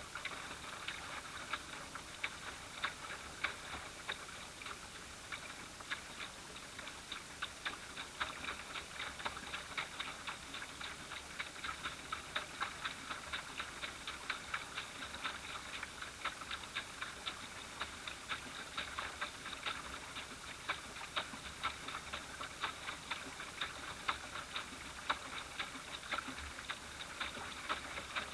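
Small ripples lapping and slapping against a small boat's hull as it moves, a quick, irregular patter of light clicks.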